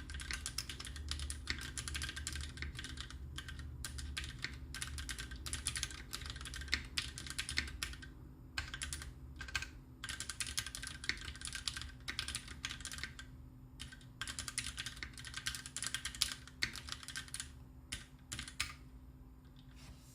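Typing on a custom Taichi TKL mechanical keyboard with lubed Greetech Black linear switches and GMK cherry-profile keycaps: fast runs of keystroke clacks, broken by a few brief pauses.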